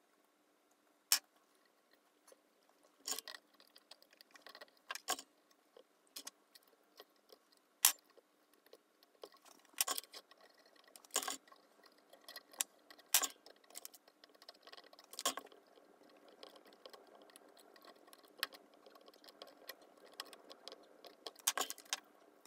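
Irregular small clicks and light metallic taps as a replacement resistor's wire leads are handled and bent into the solder lugs of a vintage Heathkit MM-1 voltmeter.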